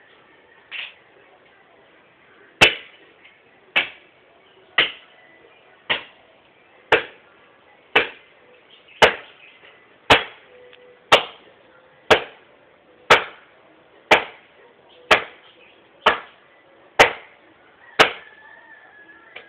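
Wood being chopped by hand: about sixteen sharp, evenly paced blows, roughly one a second, starting a couple of seconds in and stopping near the end.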